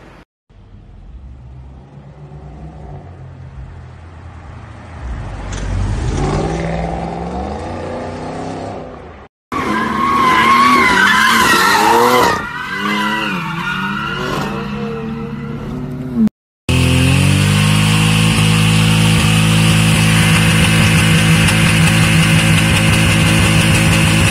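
BMW cars in a run of short clips: an engine revving up, then tyres squealing through a drift, then a loud steady drone.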